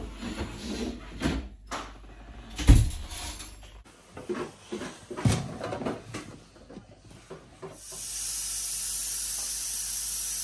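Handling clatter as a large plastic bowl of seasoned meat is moved and set into a fridge: irregular knocks, with one loud thump about three seconds in. From about eight seconds a steady high hiss takes over.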